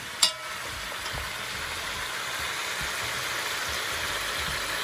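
Beef ribs sizzling steadily as they brown in a metal pot, with one sharp clink of a metal meat fork against the pot just after the start.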